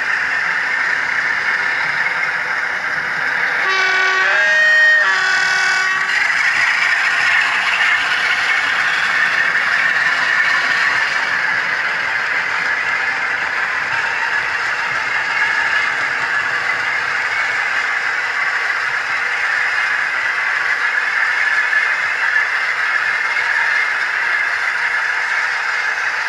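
OO gauge model train running on the layout, a steady rumble of wheels and motor. About four seconds in, a sound-fitted model diesel locomotive sounds its horn: three notes, low, high, low, lasting about two seconds.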